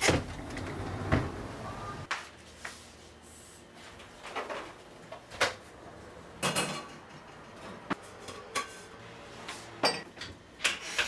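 Household handling sounds: a curtain being drawn back and a window slid open, then scattered knocks and clicks, ending with the clatter of a plastic container lid being lifted.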